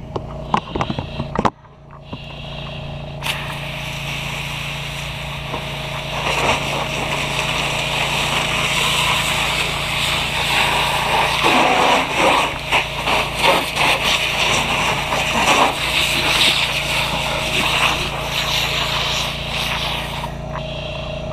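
A loud rushing hiss of water spray on a burning car, starting suddenly about three seconds in, with many crackles and pops, over the steady drone of an engine running.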